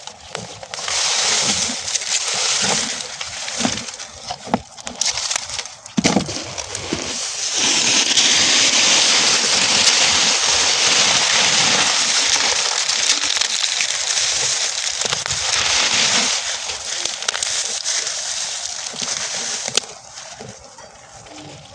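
Burning straw crackling and popping. From about seven seconds in, the flames flare into a steady rushing hiss that lasts about eight seconds, then thins back to scattered crackles.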